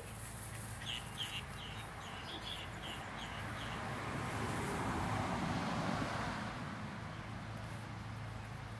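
A small bird chirping in a quick series, about four chirps a second, for the first three seconds or so. About halfway a broad rush of noise swells and fades, over a low steady hum.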